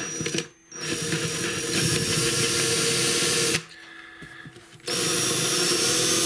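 Handheld power drill with an 11/64-inch bit boring a bridge-pin hole through a guitar's wooden bridge. After a few short blips of the trigger, the motor runs with a steady whine in two spells of about three seconds each, separated by a pause of about a second.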